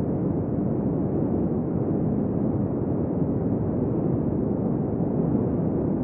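Desert wind ambience: steady wind blowing as a dull, low rush of noise at an even level, with no single gust standing out.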